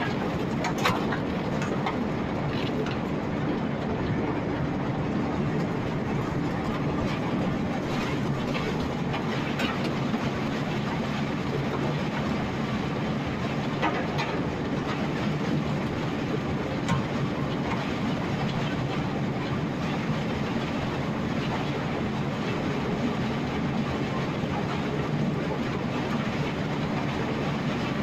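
Tractor-driven ear corn feed grinder and chain drag-feed conveyor running steadily under load, a low even drone with scattered sharp clicks and knocks as the chain and corn ears move through.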